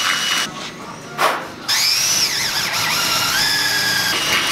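Cordless Makita drill boring into a car's trunk lid: the motor whines, stops about half a second in, gives a short blip, then runs again from about two seconds with its pitch dipping and rising as the bit bites into the metal.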